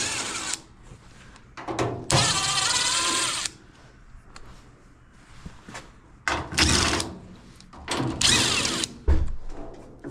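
Power drill/driver running in three short bursts, a little over a second each, backing out screws to take off a washer panel, with a couple of low knocks between.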